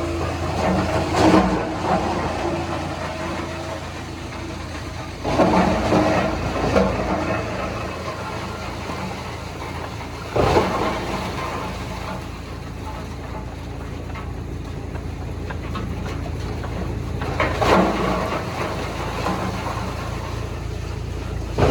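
A heavy engine running steadily, with short louder bursts every few seconds.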